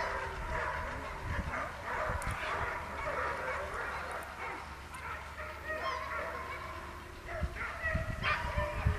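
Dogs yelping and barking in many short, high, excited calls, over and over.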